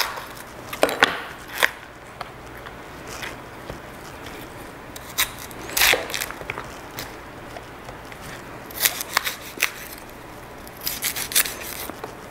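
Kitchen knife cutting through cauliflower stalks on a cutting board as the head is split into florets: irregular crisp cuts and snaps, a few at a time with pauses between.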